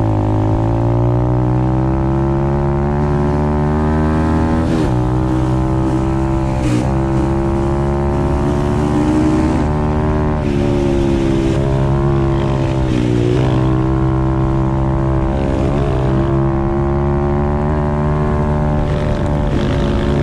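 Apollo RFZ 125cc pit bike's single-cylinder four-stroke engine running hard at high revs, its pitch dipping briefly a few times and coming straight back up.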